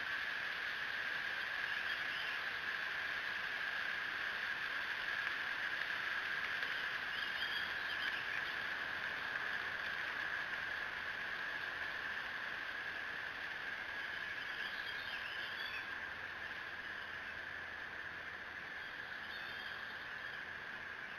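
A steady high-pitched outdoor hum with faint high bird calls about four times.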